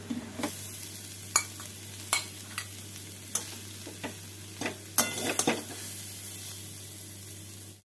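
A metal spatula scraping and knocking against a metal kadai as greens with chickpeas and coconut are stir-fried, over a steady sizzle. The scrapes come irregularly, a few per second at most, with a cluster about five seconds in. The sound cuts off suddenly just before the end.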